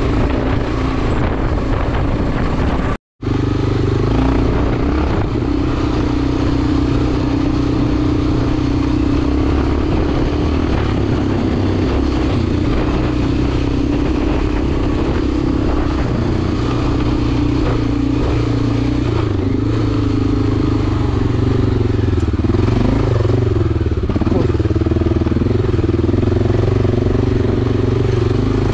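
Enduro motorcycle engine running at a fairly steady speed while riding, with the pitch wavering up and down in the last several seconds. The sound cuts out completely for a moment about three seconds in.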